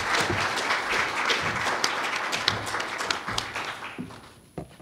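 Audience applauding, the clapping dying away about four seconds in, followed by a couple of knocks near the end.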